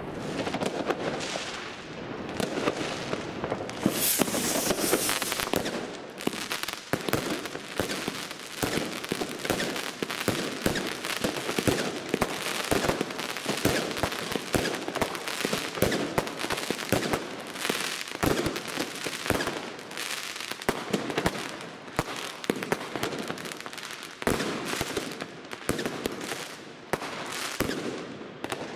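Consumer firework batteries firing in quick succession: a dense run of bangs and crackling bursts, several a second. About four seconds in there is a louder crackling spell.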